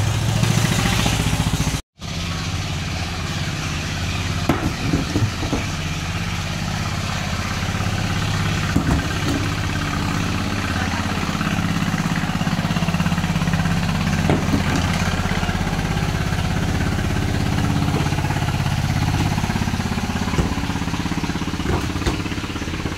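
Engines of wooden fishing boats running steadily on the river, a low even hum, with a few short knocks.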